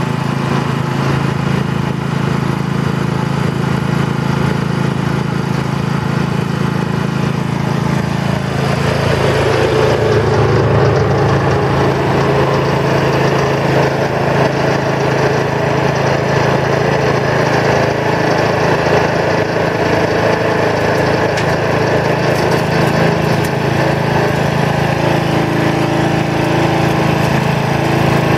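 Small Honda petrol engine of a Muck Truck mini dumper idling steadily. About nine seconds in, a louder engine joins it: the Kubota mini excavator's diesel working as it digs soil and tips it into the dumper's skip.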